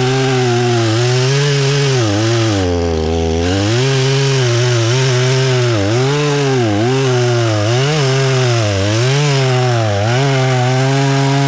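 Husqvarna 120 Mark III two-stroke chainsaw running at high revs while cutting through a log. Its pitch sags deeply about three seconds in, then dips again about once a second as the chain loads up in the wood.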